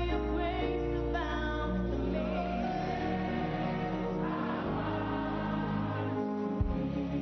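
A choir singing gospel praise music over instrumental accompaniment, with held, sliding notes.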